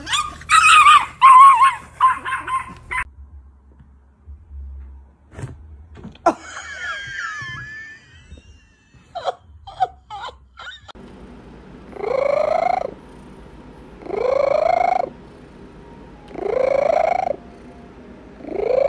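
Cats yowling at each other, loud and high. A few sharp clicks follow, and then a cat gives four drawn-out calls about two seconds apart, each rising in pitch and holding.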